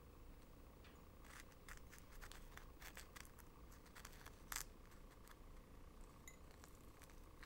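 Faint, crisp crackles and scratches of fingers handling and rubbing a sugar-coated dried wild pear slice, its sugary surface crackling under the fingertip; a scatter of small clicks, the sharpest about four and a half seconds in.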